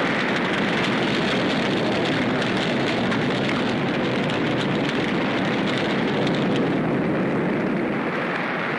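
Dense, steady battle noise: aircraft engines with a fine crackling over them, easing slightly near the end.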